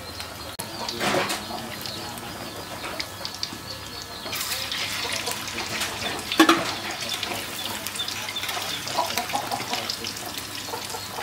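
Fish patties deep-frying in hot oil in a wok: a steady crackling sizzle that starts about four seconds in. A single sharp knock comes about six seconds in.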